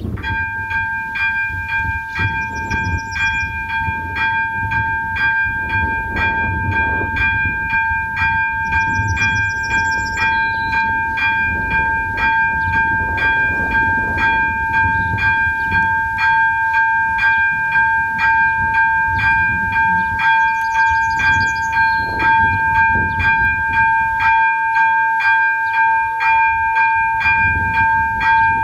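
AŽD ZV02 electronic bell of a Czech level crossing ringing in fast, even, repeated strokes with a steady bright tone, starting right at the beginning: the crossing has been activated to warn of an approaching train.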